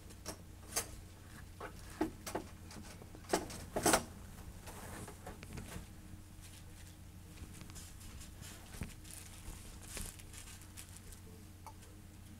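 Irregular clicks and knocks of handling noise, a quick run in the first four seconds with the loudest about four seconds in, then a few fainter taps, over a steady low hum.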